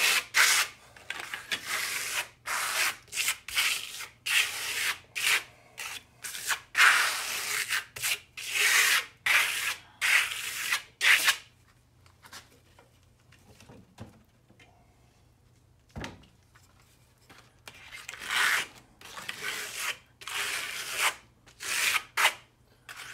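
Steel Japanese trowel scraping across wet RS Stone plaster in quick repeated strokes, spreading and smoothing it. The strokes stop for several seconds about halfway, with a single light knock, then start again.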